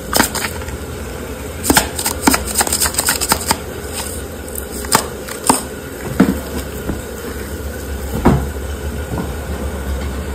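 Kitchen utensils clicking and knocking during food preparation: a quick run of clicks about two seconds in, then a few single knocks, over a steady low hum.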